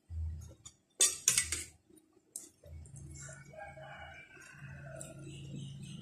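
A rooster crowing in the background over close chewing sounds, with a brief loud crackling crunch about a second in.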